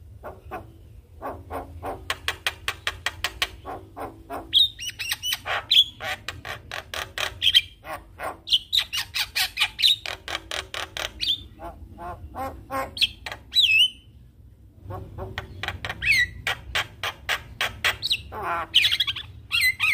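Javan myna singing vigorously: rapid runs of short, harsh chattering notes mixed with squawks and whistled glides, breaking off for about a second partway through before starting again.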